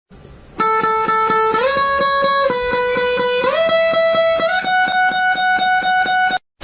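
Background music: a held guitar-like tone that steps to a new pitch about once a second over a fast, even ticking beat. It cuts off suddenly near the end.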